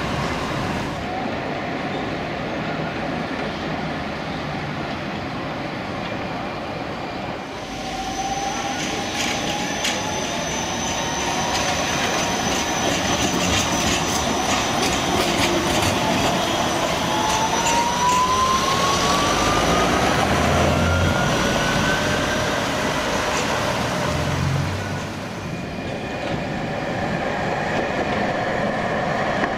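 Tatra T3 and low-floor Škoda trams running on street track, wheels rumbling on the rails. Twice a tram's electric drive gives a whine that rises in pitch as it picks up speed.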